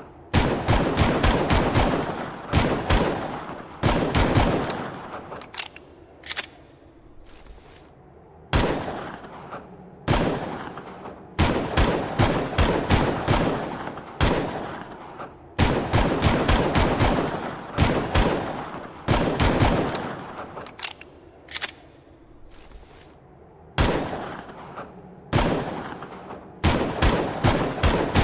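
Longslide pistol gunshot sound effect: shots fired in quick runs and singly, each sharp report trailing off in a decaying echo, with a couple of longer pauses between strings of fire.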